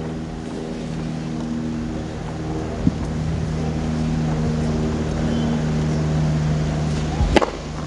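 A steady low hum of court ambience on the broadcast sound, with two sharp knocks about four and a half seconds apart.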